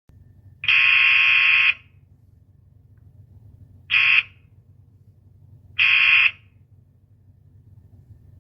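Old-fashioned doorbell sounding three times: a long ring of about a second, a short one about two seconds later, then a half-second one. Each is a steady, even tone that starts and stops abruptly, over a faint low hum.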